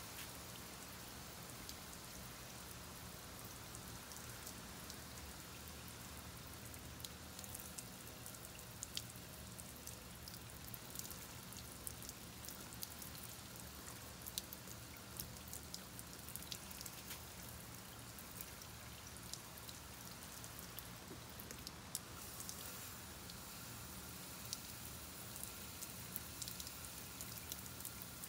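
Steady rain falling, with many individual drops ticking sharply close by.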